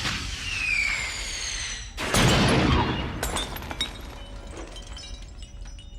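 Dubbed-in sound effect: falling whistling tones, then a sudden loud crash of shattering glass about two seconds in, followed by scattered pieces clinking for a couple of seconds over a low rumble.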